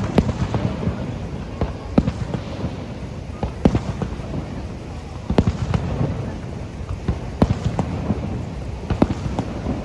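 Fireworks display going off: sharp bangs at uneven intervals, about one every second or two, over a steady low rumble.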